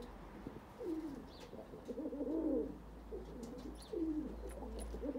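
Kamagar pigeons (Pakistani high-flyer breed) cooing: a run of low coos in short phrases, each rising and then falling in pitch, four or five in a row with brief gaps between.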